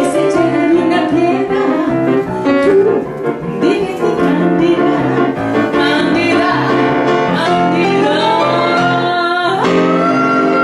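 A woman singing into a microphone with grand piano accompaniment. Near the end she breaks briefly, then holds one long high note.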